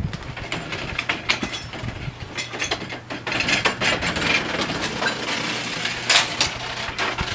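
Irregular clicking and clattering of metal parts being handled, a busy string of sharp clicks and knocks that thickens about three seconds in.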